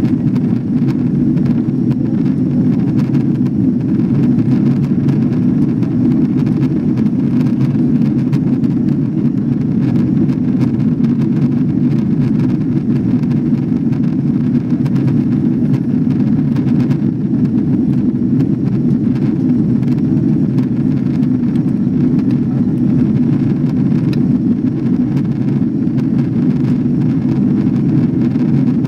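Steady low roar inside the cabin of an Airbus A340-600 climbing after takeoff: its four Rolls-Royce Trent 500 engines and the airflow over the fuselage, unchanging in level.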